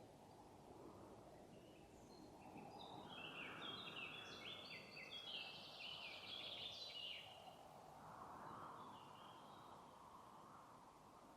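A songbird sings a fast run of short notes, each stepping down in pitch. The song starts about two and a half seconds in, lasts about five seconds and then fades, over a faint steady rustle of forest background noise.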